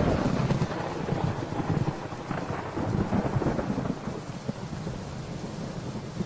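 Rolling thunder over steady rain, rumbling and crackling and slowly fading after a crack that struck just before.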